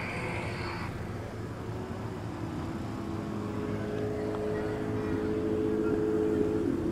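A motor vehicle engine runs over a low, steady rumble. Its pitched note holds steady for a few seconds, then drops near the end.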